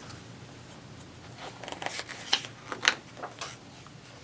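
Paper handling: a picture book's page being turned, a few short crisp rustles and flicks about halfway through.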